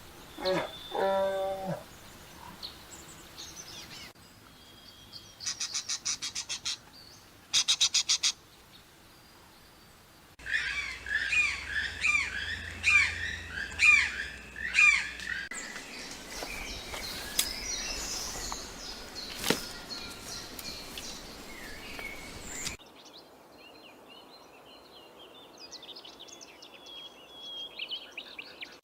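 A run of separate animal calls, mostly birds chirping, with a rapid pulsed trill in between.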